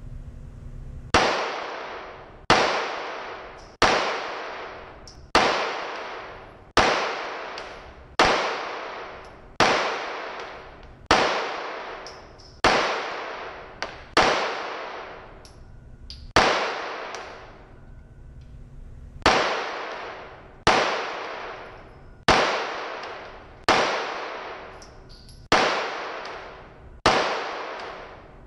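Handgun fired slowly and steadily in an indoor range, one shot about every second and a half, each followed by a long echoing tail in the enclosed range. There is a pause of about three seconds around the middle before the shooting resumes.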